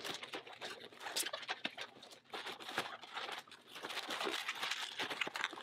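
Blue 260 latex twisting balloons rubbing and squeaking against each other and the hands as they are squeezed and twisted: a quick, irregular run of short squeaks and crackles.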